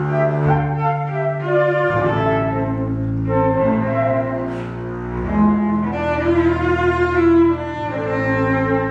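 A flute, double bass and cello trio playing together, with the bass and cello bowed. Long held notes change every second or two.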